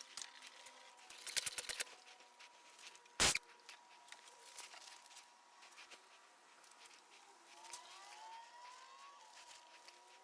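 Quiet handling noises: a short run of rapid clicking about a second in, then a single sharp knock about three seconds in, followed by scattered faint ticks. Faint rising tones drift in near the end.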